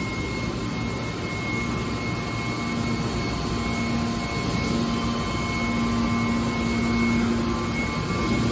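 Hydraulic scrap-metal baler running: a steady machine hum from its motor and hydraulic pump, with a low tone that grows stronger about halfway through.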